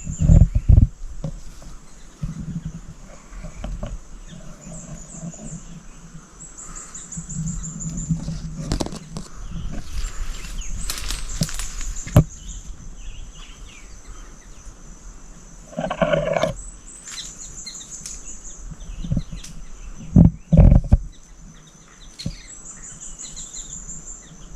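Wild birds calling in woodland: short high trills repeat several times, and one louder call comes about 16 seconds in. A steady high hiss sits under them, and a few low thumps come near the start and about 20 seconds in.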